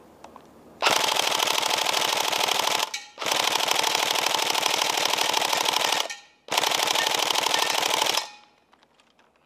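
Tokyo Marui Next Gen SCAR-L airsoft electric gun firing on full auto in three long bursts of about two to three seconds each, separated by short pauses. The last burst stops a little over a second before the end.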